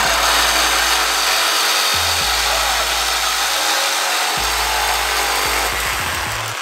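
Reciprocating saw with a carbide-tipped blade cutting through the steel of a Porsche Cayman's factory exhaust: a loud, steady metal-cutting noise that eases off near the end.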